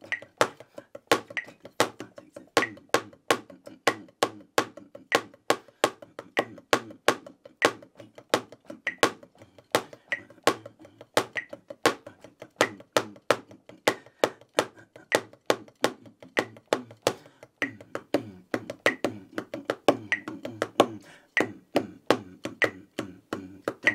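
Wooden drumsticks striking a Reflexx rubber practice pad in a snare solo of polyrhythmic figures: a steady stream of sharp strokes with louder accents recurring at regular spacing.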